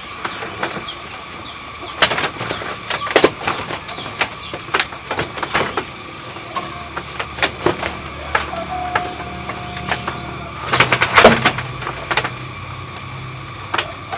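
Irregular knocking and tapping from hand work, with a dense cluster of knocks about eleven seconds in. Birds chirp now and then behind it.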